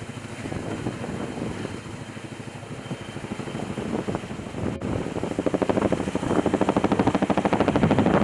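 Tandem-rotor Boeing Vertol heavy-lift helicopter lifting a log on a long line, its rotor blades beating in a fast, even rhythm that grows louder and sharper over the last few seconds as it comes overhead.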